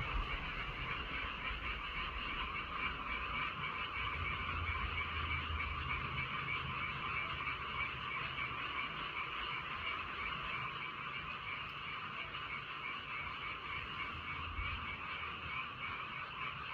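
A dense chorus of many frogs calling together in a continuous, overlapping croaking that pulses rapidly without a break.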